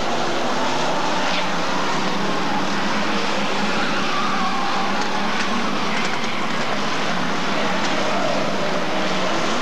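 A pack of Hot Stox oval racing cars lapping the track, their engines merging into one steady mix of engine noise with no single car standing out.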